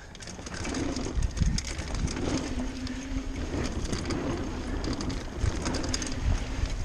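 Mountain bike rolling fast over a wooden slat boardwalk and then onto dirt, with tyre rumble, the bike rattling and clicking, and wind buffeting the microphone. A steady low hum comes and goes.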